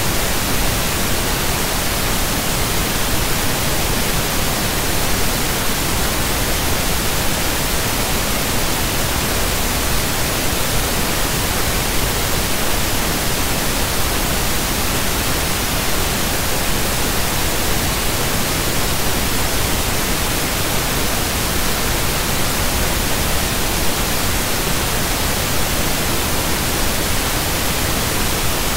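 Loud, steady hiss of static noise that spreads evenly from low to high pitch and does not change.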